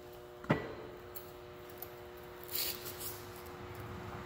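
Metal transmission parts being handled inside a Spicer 3053A gearbox case as the countershaft gears are worked into place: one sharp knock about half a second in, then soft scraping and rustling. A faint steady hum runs underneath.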